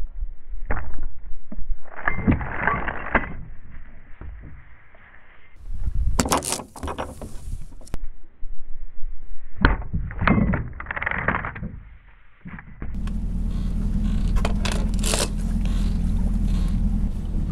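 A metal boat hook knocking and scraping against a steel mooring ring on wooden decking, several separate times. About thirteen seconds in, this gives way to a steady low drone with wind noise, as on a boat on the water.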